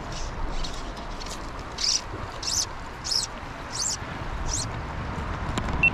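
Fly line being stripped in by hand through the rod guides, a short rasping zip about every two-thirds of a second while a fish is on, over the steady rush of the creek.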